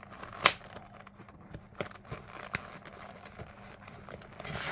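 A ladies' high-heeled boot being prised and split apart: scattered clicks and crackling, with one loud sharp snap about half a second in.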